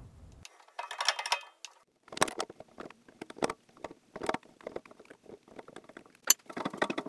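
Hand-tapping threads in an aluminum casting: a short scrape about a second in, then many small irregular clicks and ticks as the tap wrench is worked back and forth and the tap cuts and breaks chips, with one sharper click near the end.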